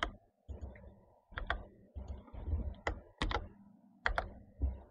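Computer keyboard being typed on: a dozen or so separate keystrokes at an uneven pace.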